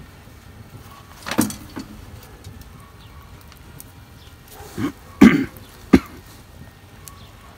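A few brief knocks and clatters: one about a second and a half in, then a quick run of them around five to six seconds in, the loudest a little past five seconds and the last a sharp click.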